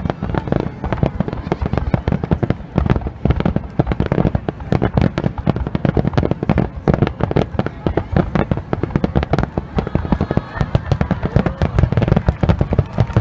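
Finale barrage of aerial fireworks: shell bursts going off in rapid, overlapping succession, many bangs a second with deep booms, with no let-up.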